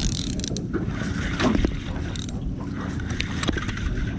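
Spinning reel being cranked steadily to wind in a hooked fish, its gears whirring.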